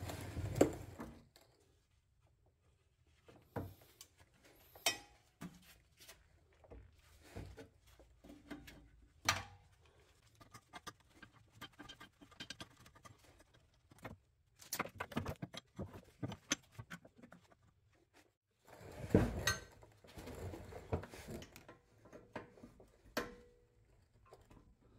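Hand wrenches working on a car's rear brake line fitting and caliper bolts: irregular metal clicks, clinks and knocks, with busier handling noise right at the start and again past the three-quarter mark.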